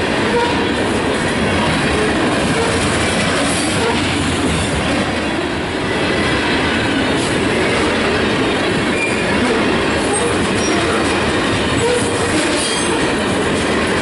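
Loaded covered grain hopper cars of a freight train rolling past a level crossing: a steady rumble of steel wheels on the rails, with occasional brief wheel squeal.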